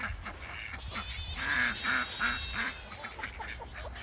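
A flock of farm waterfowl calling as it follows a person. There is a run of loud calls about halfway through.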